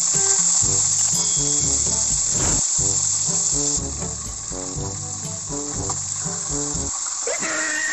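Tilapia frying in hot oil in a wok, a steady high sizzle that eases slightly about halfway through as the fish is turned. Under it, background music with a bass beat plays and stops near the end.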